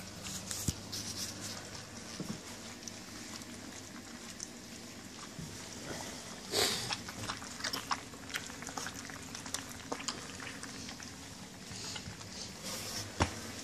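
A litter of puppies eating dry kibble from a stainless steel feeding pan: steady crunching and chewing with many small sharp clicks, and a louder clatter about six and a half seconds in.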